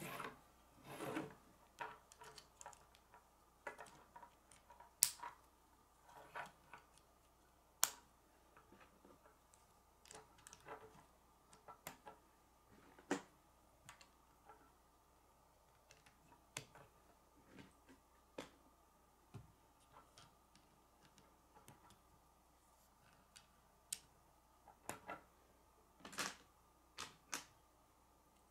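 Plastic K'nex rods and connectors being handled and snapped together on a wooden tabletop: faint, irregular clicks and small knocks, a few of them sharper than the rest.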